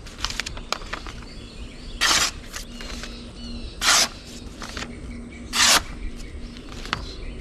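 Three short papery rips as the APOC Trench Bowie's black-coated spring-steel blade slices through a sheet of printer paper, about two seconds apart. The blade catches and tears the paper rather than gliding through it, a sign of an edge that is not very sharp. Birds chirp in the background.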